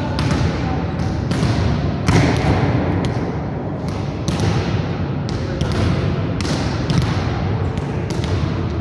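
Volleyballs being hit and bouncing off a gym floor: irregular sharp thuds, roughly one a second, ringing in a large hall.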